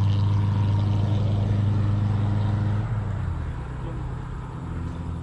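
An engine running at a steady speed, a low even hum that drops in level about three seconds in.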